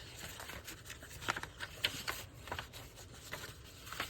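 Sheets of paper being handled and shuffled on a desk: soft rustling broken by several sharp crinkles and taps.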